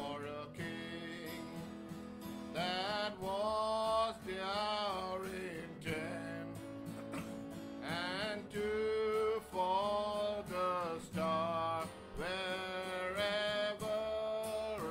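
A Christmas carol sung to a strummed acoustic guitar, with a high young voice holding the melody in long, wavering notes.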